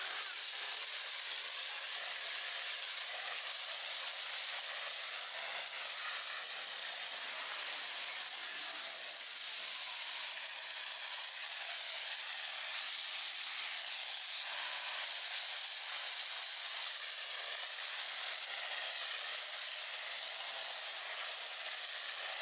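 Pressure washer with a foam cannon spraying a jet of soapy foam onto a vehicle, a steady hiss.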